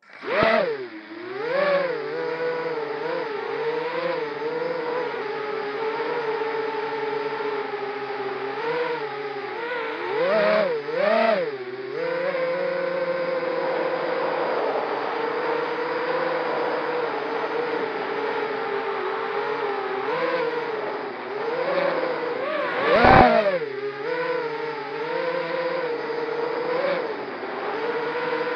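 Racing quadcopter's brushless motors and propellers spinning up from silence at the start, then whining steadily in flight, the pitch rising and falling with the throttle. A brief loud surge comes about three quarters of the way through.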